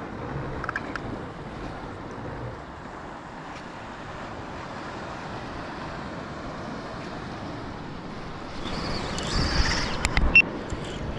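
Wind buffeting the microphone over moving sea water, with a louder burst of hissing and several sharp knocks about nine to ten seconds in.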